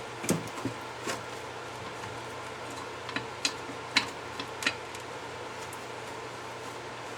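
Scattered light metallic clinks and knocks of brake parts and tools being handled: a few early on, then a quick cluster about three to five seconds in. A steady background hum runs underneath.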